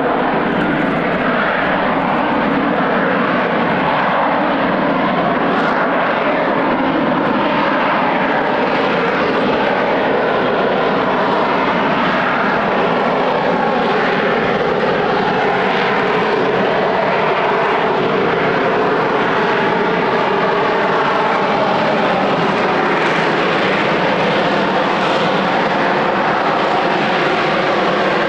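Rolls-Royce Pegasus turbofan of a Harrier jump jet running loud and steady: a broad rushing jet noise with a few faint tones that waver slowly in pitch.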